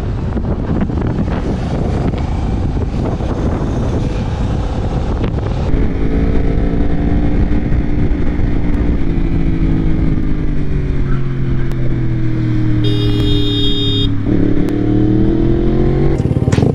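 A motorcycle ridden in traffic. For the first few seconds, wind buffets the helmet microphone. Then a sport bike's engine runs with its pitch slowly falling, and picks up again as it accelerates near the end. About 13 seconds in, a high-pitched tone sounds for about a second.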